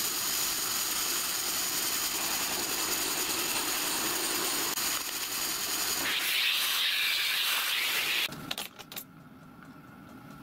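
Machine spindle running a counterbore cutter into the compound slide casting of a small micro lathe, a steady cutting noise. The sound grows harsher and brighter about six seconds in, then drops away about eight seconds in, leaving a quiet background.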